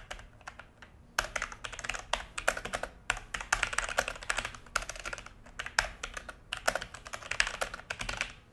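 Logitech G413 mechanical keyboard being typed on in quick runs of keystrokes, broken by short pauses, the longest about a second in.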